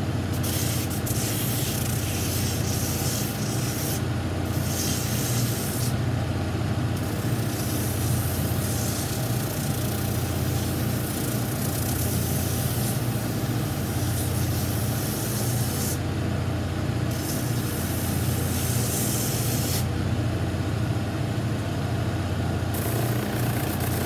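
Shoe finishing machine running with a steady motor hum while its sanding wheel grinds the edges of a new Vibram boot sole; the hissing sanding noise stops briefly several times as the boot is lifted off and set back.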